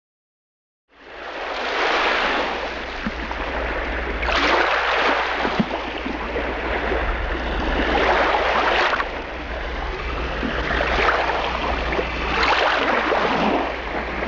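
Rushing water noise, like waves washing, swelling every two to four seconds over a steady low hum. It fades in about a second in, after a moment of silence.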